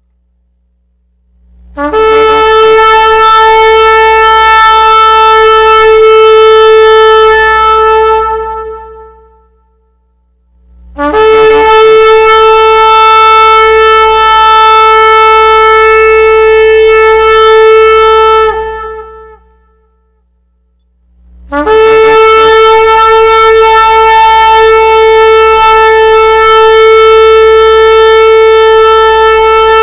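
A horn blown in three long, steady blasts of one pitch, each lasting about seven or eight seconds with a short pause between; the third is still sounding at the end.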